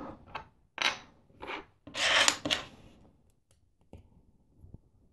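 Plastic LEGO Technic gear and axle pieces being handled, rubbing and scraping as a gear is worked onto an axle. A few short scrapes, the longest about two seconds in, then only a couple of faint clicks.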